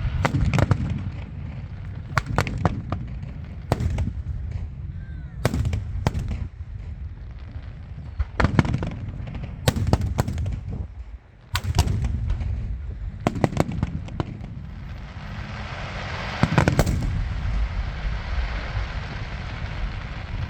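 Aerial fireworks shells bursting in a series of sharp bangs, one every second or two, over a low rumble. About three-quarters of the way through, a spell of crackling and fizzing builds with a cluster of bangs.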